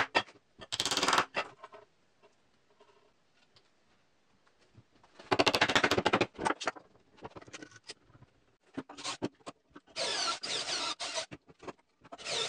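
Bursts of rapid knocking and scraping on plywood: a wooden mallet beating glued dowels and the joint of a plywood wheel blank, along with sandpaper rubbing the wood. The loudest burst comes about five seconds in, with shorter scratchy bursts later.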